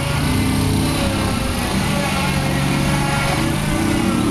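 Small engines of a quad bike and a go-kart running as they drive, the engine pitch shifting up and down with the throttle.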